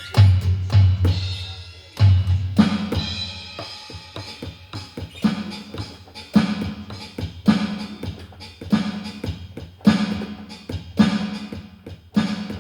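Donner electronic drum kit played in a steady groove: bass drum and snare hits with cymbal wash, heavy low thumps landing about once a second.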